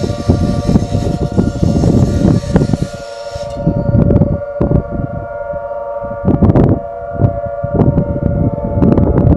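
Plymouth's civil-defence air raid siren sounding its weekly test, a loud held wailing tone. Heavy low rumbling comes over it in irregular gusts.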